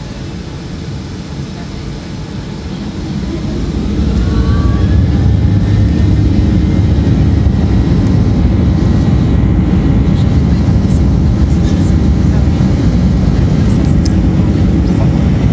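Boeing 737-800's CFM56-7B jet engines heard from inside the cabin, spooling up to takeoff thrust about three seconds in with a faint rising whine. The noise then holds as a loud, steady rumble during the takeoff roll.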